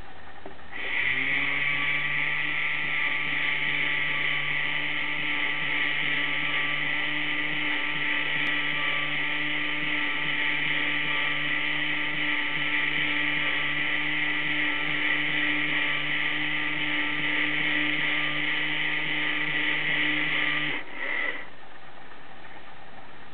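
Motorized Peco NB-55 model railway turntable turning under DCC decoder control: a steady small electric motor and gear whine that starts about a second in and runs evenly for about twenty seconds. It then stops, with one brief short burst just after.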